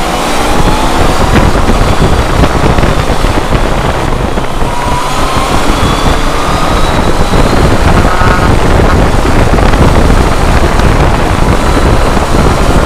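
Riding motorcycle heard from an on-board camera on a BMW K1200R Sport: heavy wind rush on the microphone, with the engine note rising as it accelerates near the start and again about five seconds in.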